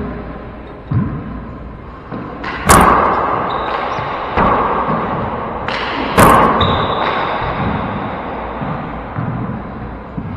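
Handball rally in an enclosed four-wall court: a string of sharp smacks as the rubber ball is struck by gloved hands and hits the walls and floor, each one echoing. The two loudest come a little under three seconds in and about six seconds in.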